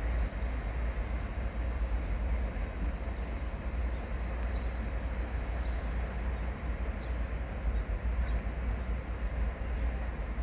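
Freight train of Eas open goods wagons rolling past with a steady low rumble and wheel noise.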